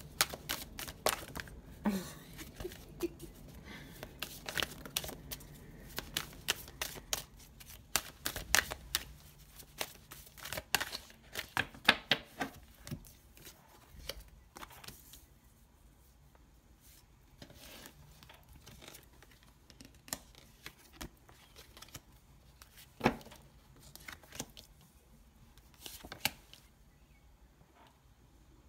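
A deck of oracle cards being shuffled, with rapid crisp snaps and flicks as the cards riffle and slip out, for about the first thirteen seconds. After that, single cards are slid and laid down on the tabletop with occasional soft taps.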